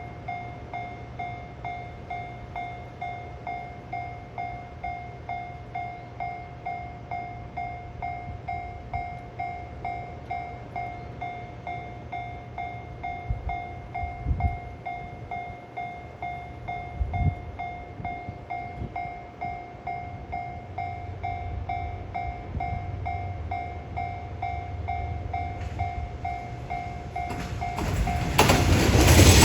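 Japanese level crossing warning bell ringing in a fast, steady repeat over the low rumble of an approaching diesel train. About 28 seconds in, the train reaches the crossing and its passing noise grows loud enough to drown out the bell.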